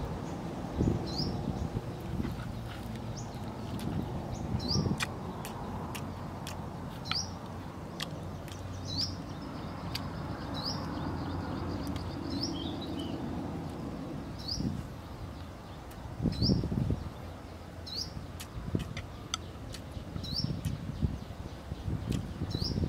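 A bird repeating a short rising chirp about every second and a half, over the sounds of a man eating noodles: chewing, low bumps and light clicks of a fork on a plate.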